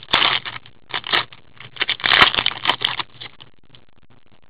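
Hockey card pack wrapper being torn open and crinkled, with the cards handled: several crackly rustling bursts with a few sharp clicks, ending about three seconds in.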